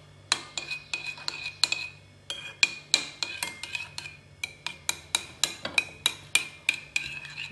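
A spoon stirring a thick paste in a bowl, clinking sharply against its side about four to five times a second, with a brief pause about two seconds in: sesame oil being mixed into a cooked pumpkin and cornstarch hair mask.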